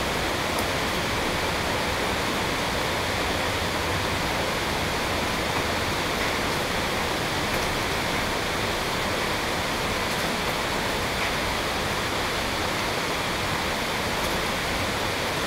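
Steady, even rushing noise with a few faint ticks.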